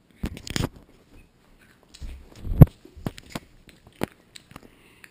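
A nut being chewed close to the microphone: a run of sharp crunches and clicks, with a heavier thump about two and a half seconds in.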